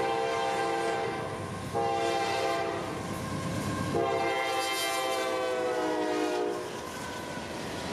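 CSX freight locomotive's multi-note air horn sounding in long blasts as the train approaches, the last blast sliding down in pitch as the locomotive passes and cutting off, followed by the rumble of the freight cars rolling by.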